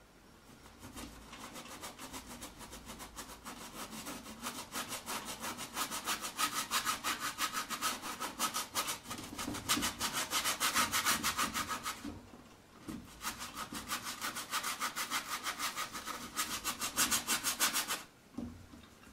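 Paintbrush scrubbing paint onto a stretched canvas in quick back-and-forth strokes, several a second, with a short pause about two-thirds of the way through before it stops near the end.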